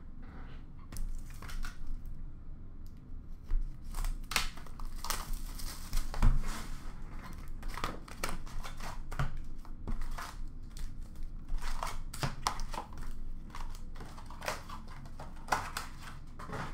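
Crinkling, tearing packaging as a box of Upper Deck hockey card packs is unwrapped and opened, with the foil packs rustling as they are pulled out and stacked. Irregular crackles and sharp clicks come and go throughout.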